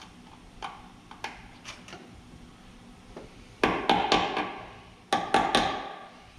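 Metal tool tapping new bushings into a GM pickup's door hinge: a few light taps, then two quick runs of sharper, ringing metal-on-metal strikes, three or four each, in the second half.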